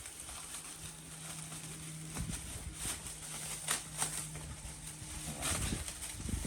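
Bubble wrap and plastic packaging rustling and crackling as it is pulled off a sanding drum, with scattered short crackles over a faint steady low hum.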